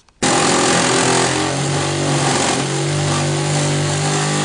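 A power tool cutting an opening through the inner wall of a school bus. Its motor starts abruptly and then runs at a steady, loud pitch, with the cutting noise over it.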